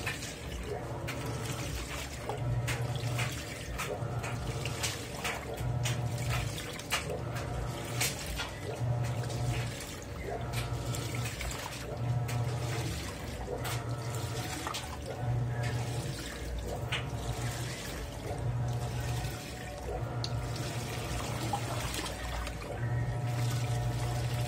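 Panasonic NA-F160B5 16 kg top-loading washing machine agitating a full load of T-shirts. The motor hum swells about every two seconds as the wash action reverses, over the sloshing of water and wet clothes.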